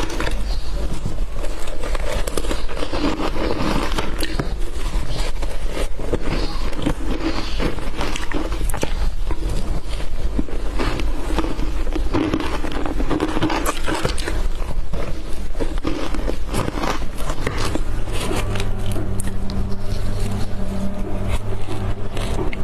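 Eating matcha shaved ice: a spoon scraping and crunching through the ice with biting, giving a dense run of short crackly scrapes. A steady low hum comes in about two-thirds of the way through.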